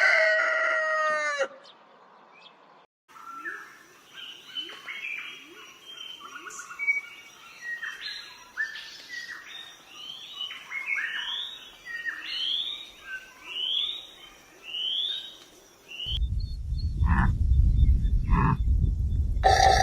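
A songbird singing a long run of quick, short rising notes, repeated over and over. It opens on the tail of a rooster's crow, and about sixteen seconds in gives way to a low rumbling noise with a few short calls.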